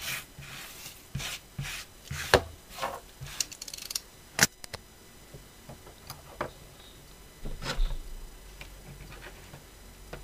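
Irregular light clicks, taps and rubbing as thin resin kit parts and a snap-off craft knife are handled and set down on a cutting mat, with a few sharper knocks about two and four seconds in and again near the end.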